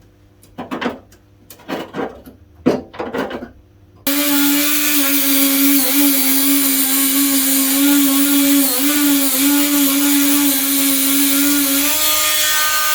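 A few clattering knocks, then about four seconds in a power tool fitted with a wire-brush wheel starts suddenly. It runs at a steady high whine with a hiss over it, scrubbing rust back to bright metal, and starts winding down near the end.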